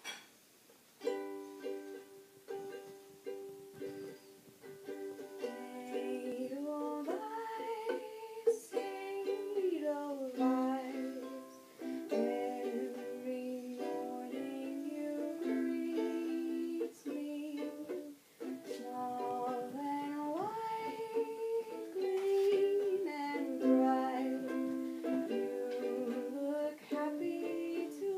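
Ukulele strummed in chords, with a woman singing along from about six seconds in.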